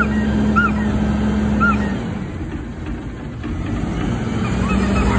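Heil Half/Pack front-loader garbage truck working its Curotto Can arm: the engine and hydraulics run with a steady hum that drops away about two seconds in and picks up again near the end as the can is lowered. Short high squeaks repeat over the hum during the first two seconds.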